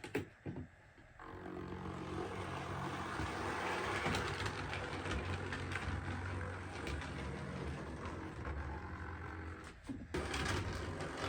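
OO gauge model locomotive running steadily along the track under DCC power. The sound starts about a second in, after a few clicks, and drops out briefly near the end.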